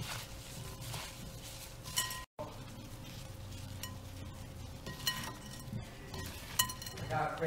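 Shredded green papaya, carrot and cucumber being tossed by gloved hands in a glass mixing bowl, with a few short ringing clinks as the hands knock against the glass.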